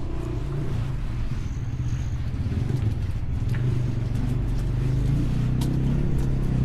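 A vehicle engine running steadily, a low even hum with a few faint clicks over it.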